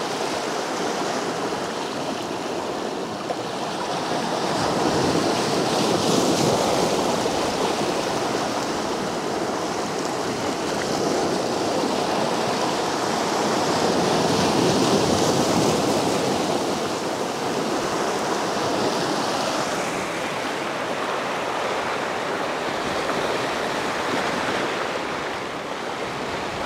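Sea waves washing and breaking over rocks at the shoreline, a steady rush of surf that swells louder twice, about a quarter of the way in and again just past halfway.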